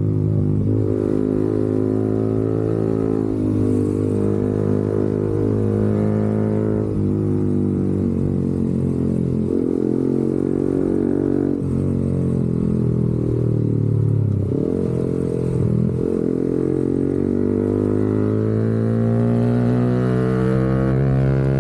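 Motorcycle engine and exhaust running, its pitch rising and falling several times and climbing toward the end.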